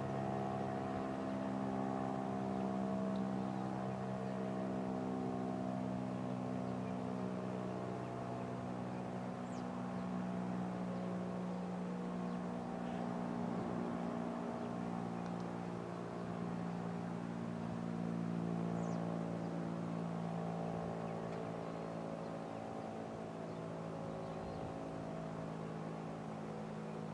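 Federal Signal STH-10 fire siren sounding a steady tone that wavers slightly in pitch and slowly eases in level.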